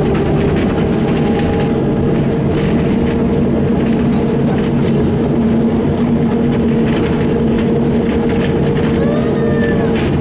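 Ikarus 260.50 city bus under way, heard from inside the passenger cabin: its diesel engine runs at a steady pitch under road noise and light rattles of the body.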